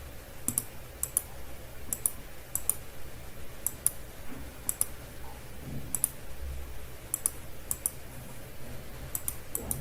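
Computer mouse clicking, mostly in quick press-and-release pairs about once a second at irregular intervals, over a low steady hum.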